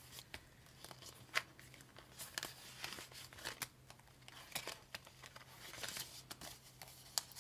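Paper banknotes being handled and slid into a clear plastic binder pocket: soft rustling and crinkling with scattered light ticks.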